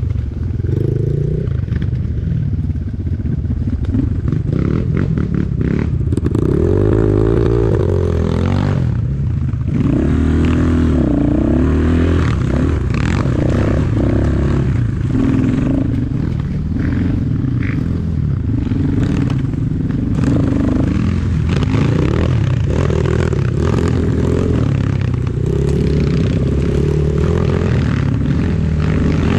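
Enduro motorcycle engine running while ridden off-road, its pitch rising and falling with the throttle, with scattered knocks and rattles.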